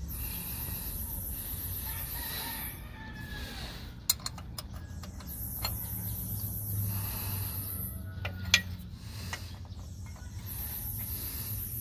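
Chickens clucking in the background, with a few sharp metallic clicks from a 14 mm open-end wrench on the clutch-cable adjusting nut. A very high-pitched hiss comes and goes three times.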